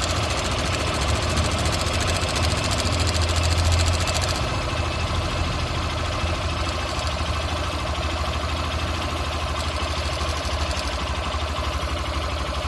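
Motorcycle engine idling with a metallic cam chain rattle from a slack cam chain tensioner. About four seconds in, as the tensioner is turned by hand, the rattle drops away, leaving the idle with a valve tappet tick that calls for a valve adjustment.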